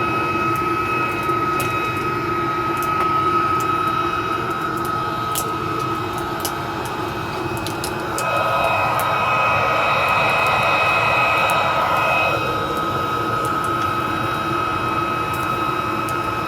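Homemade metal-melting furnace running hard: a steady roar of forced air with a constant high whine, growing louder and hissier for about four seconds midway, with faint scattered ticks.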